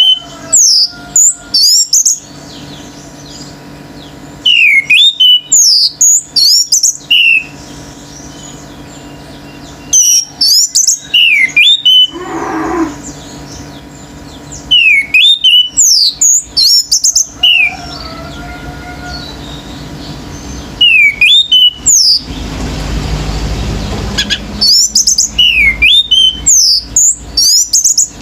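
Orange-headed thrush singing loud bouts of rapid, sweeping song notes, one bout every few seconds. A brief lower call comes about halfway through, and a stretch of low noise about two-thirds through.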